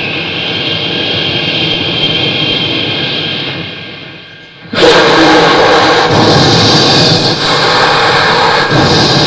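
Mimicry artists making vehicle noise with their voices, most likely a train: a steady hissing rush that sinks, then, about five seconds in, a sudden much louder rushing rumble that holds on.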